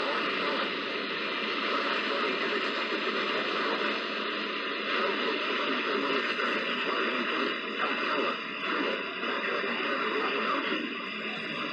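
Steady radio static: an even hiss with no clear tones or words, as from a weakly received radio broadcast.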